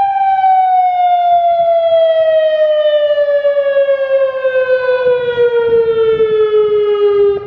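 Federal Signal Modulator 4016B outdoor warning siren ending its steady alert tone: the pitch falls smoothly and steadily as the siren winds down. The sound drops sharply in level near the end.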